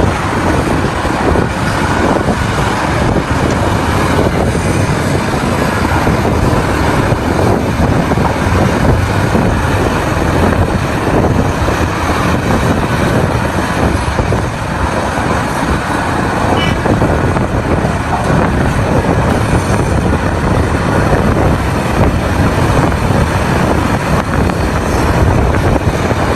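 Heavy mining machinery at work: the diesel engines of a large hydraulic excavator and haul trucks running under load, a loud, steady, dense noise with no pauses.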